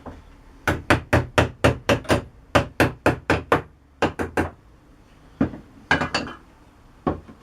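A quick run of about fifteen sharp knocks, about five a second, then a few more spaced out: a hammer tapping on a hard object.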